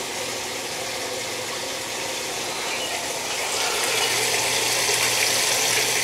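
GE top-load washing machine filling: water rushing steadily into the tub through the inlet valve, growing louder about three seconds in.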